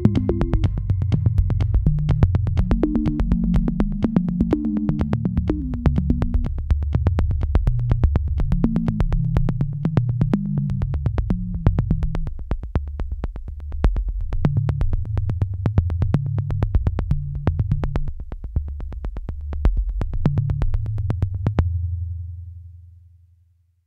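Background electronic music: a synthesizer bass line over a steady beat, fading out near the end.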